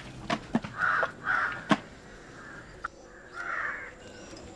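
A crow cawing, three harsh caws: two close together about a second in and one more about three and a half seconds in. Between them come a few sharp cracks in the first two seconds, from an elephant chewing.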